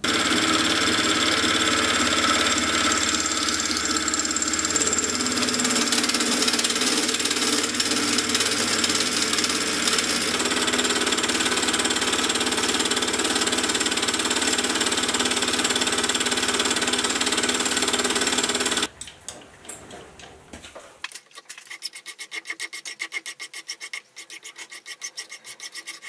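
Sieg X2.7L milling machine face-milling an annealed cold-rolled steel block with a homemade insert face mill: a loud, steady cutting noise with ringing tones that stops abruptly about 19 seconds in. Near the end, a quieter, fast, even ticking as a fly cutter takes a light finishing cut, its single tool striking the steel once per turn.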